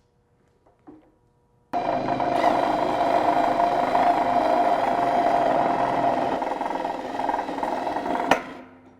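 Electric drill spinning a drill-driven wire stripping machine as Romex cable is fed through its blade. It starts suddenly after a short quiet, runs steadily for about six seconds, and stops with a click near the end before winding down.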